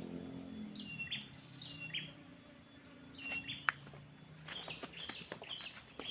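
A bird calling over and over with short falling notes that come in pairs, over a pulsing high insect trill. In the second half come several sharp clicks, the loudest a little past halfway.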